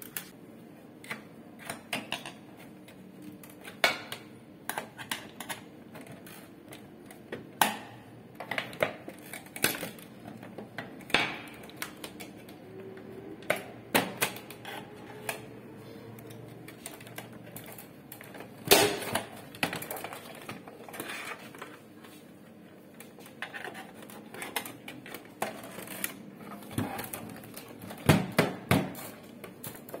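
Plastic and metal parts of an HP LaserJet P1005 printer being handled during disassembly: irregular clicks, knocks and clatter, with a sharper knock a little past halfway.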